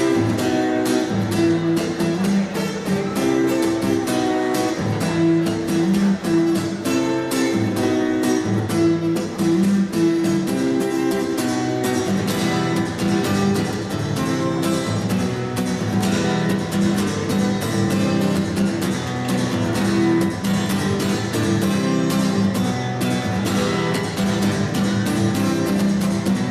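Music led by plucked and strummed guitar, playing a busy, steady run of notes.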